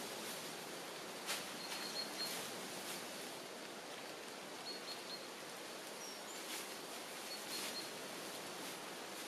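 Dry grass and straw rustling and crackling in short bursts as bundles are pressed into a thatched roof, over a steady outdoor hiss. A bird chirps faintly a few times.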